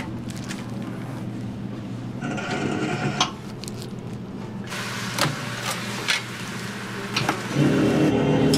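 Electric kimbap slicer running with a steady motor hum that grows louder near the end, with scattered knocks and clatter as the blades cut an egg-wrapped kimbap roll.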